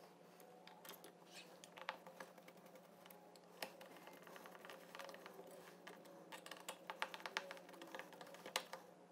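Faint, irregular small metal clicks and taps as a hand tool works the screws of a metal bracket under a black wire bike basket. The clicks come thicker in the last few seconds.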